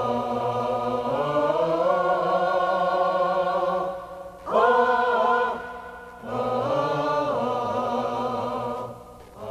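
Slow singing, a melody of long held notes in three phrases with short breaks about four and six seconds in.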